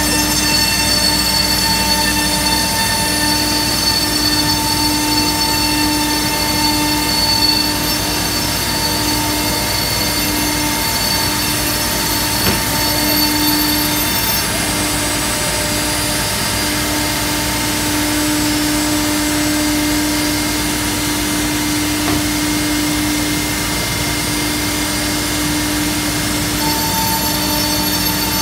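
Multi-spindle CNC router cutting melamine-faced particleboard: a steady, loud spindle whine over the rush of dust extraction, its high tones shifting about halfway through and again near the end.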